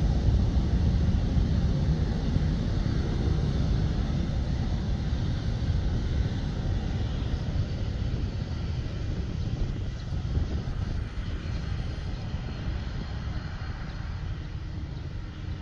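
A jet airliner's engines rumble low during its landing roll on the runway, the noise slowly fading as the aircraft moves away.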